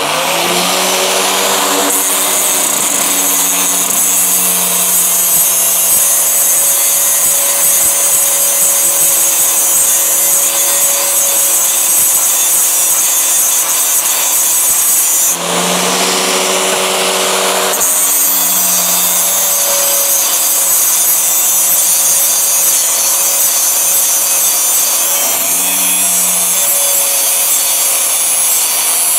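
Electric angle grinder running at full speed while a steel knife blade is pressed against its grinding disc: a steady, loud, harsh grinding hiss over the motor's hum. About halfway through, the motor's hum comes through more clearly for a couple of seconds.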